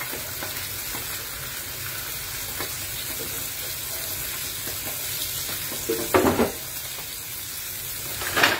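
Tilapia frying in hot oil with a steady sizzle, broken by two bursts of clattering as metal tongs knock against the pan, about six seconds in and again near the end.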